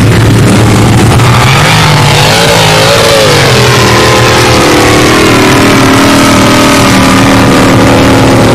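Formula Offroad buggy's engine revving hard under full load while climbing a steep dirt slope. It is loud throughout; the pitch climbs about two seconds in, wavers, then holds high.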